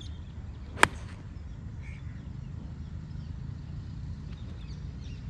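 9-iron striking a golf ball about a second in: one sharp click, cleanly struck. A steady low rumble of wind on the microphone runs under it.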